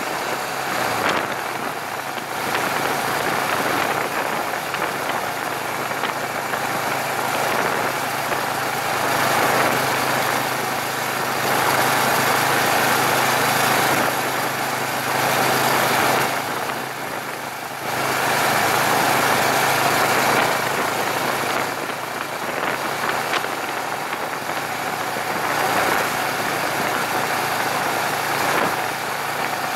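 Motorcycle on the move: steady engine note under heavy wind and road noise on the bike-mounted microphone, easing briefly a little over halfway through.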